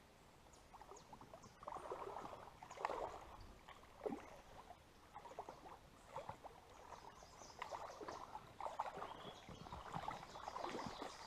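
Faint, irregular water splashing and scuffling as a hooked smallmouth bass is played in and landed, with a few louder splashes about three and four seconds in.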